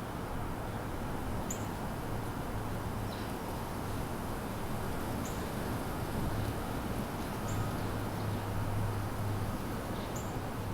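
Small birds giving short, high chirps, about five spread through, over a steady low hum of background noise.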